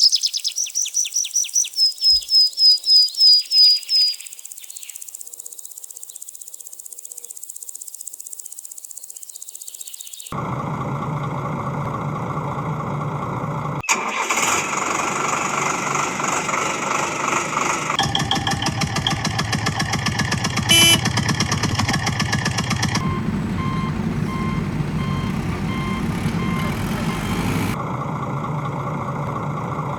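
A rapid run of high chirping pulses for about four seconds, then a quiet hiss. From about ten seconds in, a vehicle engine runs steadily. The sound is spliced into segments that change every few seconds, with a sharp click just before one change.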